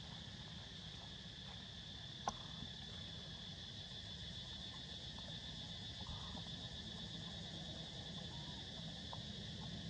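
Steady high-pitched drone of insects in the outdoor background, over a low rumble. A single sharp click about two seconds in and a few faint short chirps stand out briefly.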